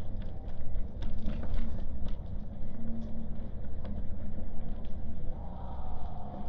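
City street ambience: a steady low rumble of road traffic with scattered short clicks, and a faint held tone that comes in near the end.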